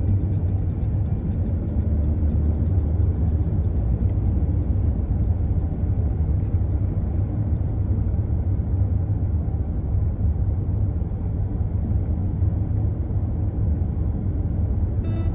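Steady low road rumble and tyre noise of a car driving at speed, heard from inside the cabin.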